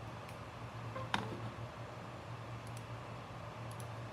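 A few small clicks of a cable connector being handled and pushed onto a small flight controller board, the sharpest about a second in, over a steady low hum.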